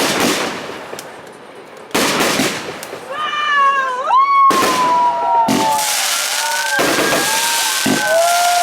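Fireworks going off: two loud bangs, then from about three seconds in several whistling fireworks shrieking at once, their pitch sliding up and down, over more bursts and crackle.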